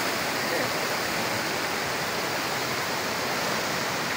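Heavy rain pouring down, a steady, even rush of water with runoff flowing across the ground.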